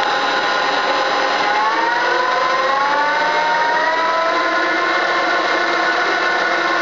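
Acer 17" x 60" E-series geared-head engine lathe running in its high gear range as its variable-speed inverter drive is turned up, spindle speed climbing from about 590 to about 1,150 RPM. A steady machine hum with a whine that rises in pitch as the speed increases, climbing in stages from about a second and a half in.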